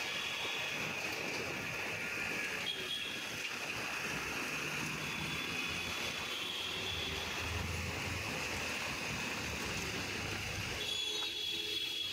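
Traffic noise on a wet city street, with a truck's engine running low as it passes, from about four seconds in until near the end.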